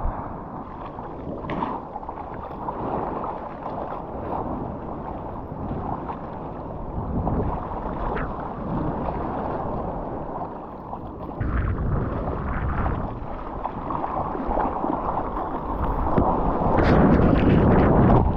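Ocean water rushing and splashing right at an action camera's microphone, with wind buffeting it. It grows louder toward the end as a wave breaks and whitewater churns over the lens.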